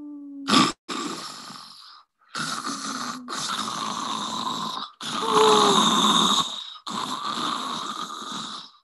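A woman's voice imitating snoring for a comic's 'MHURRR MMHHRR' sound effect: a short hum, then five snores in a row, each a second or more long, with short gaps between them.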